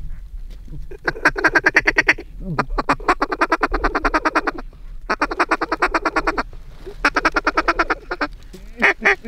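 Duck quacking in four rapid chattering runs, each one to two seconds long, then slower, louder single quacks near the end.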